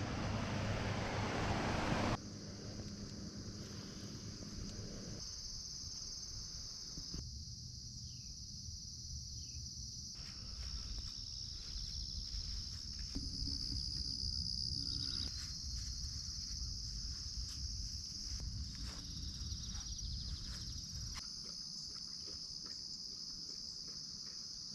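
Steady chorus of insects such as crickets, a continuous high-pitched drone. A louder rushing noise fills the first two seconds, and the quieter background under the drone changes abruptly several times.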